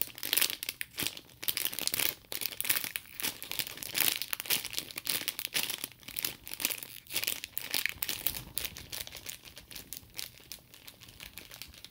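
Crisp plastic squishy packaging crinkling and crackling as it is handled in the hands, a dense run of irregular crackles that thins a little near the end.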